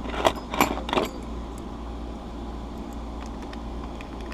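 A bunch of keys jingling and clicking as a key is handled at a door handle lock's cylinder, a quick cluster of clicks in the first second or so, then only a low steady hum.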